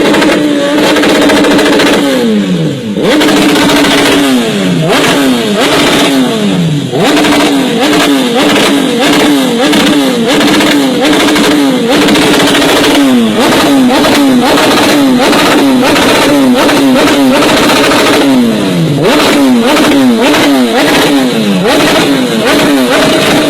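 BMW S1000RR inline-four engine through a Yoshimura exhaust, revved hard again and again, its pitch rising with each blip and falling back.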